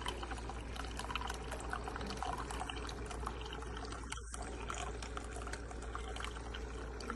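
Liquid pouring and trickling steadily with small crackles, cutting out for an instant about four seconds in.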